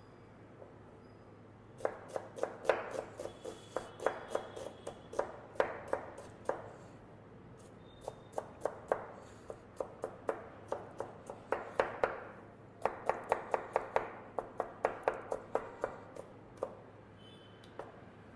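Chef's knife chopping a red onion on a plastic cutting board: quick runs of sharp knife strikes, several a second, in three bursts with short pauses between.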